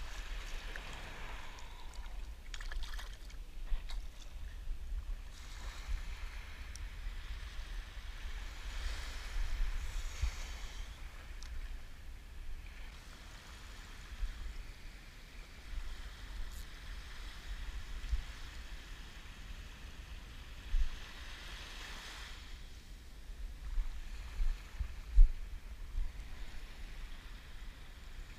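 Small waves washing and lapping at the shoreline in a steady hiss, with wind buffeting the camera's microphone as a low rumble and a few brief louder bumps.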